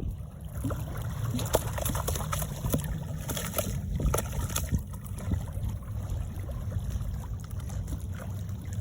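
Water sloshing and splashing with scattered small clicks, over a steady low rumble of wind on the microphone.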